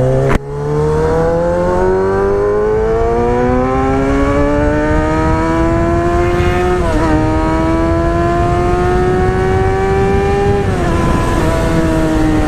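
Motorcycle engine accelerating hard under a rider, its pitch climbing steadily for several seconds, a quick upshift about seven seconds in, climbing again, then easing off near the end. Wind rushes over the microphone throughout.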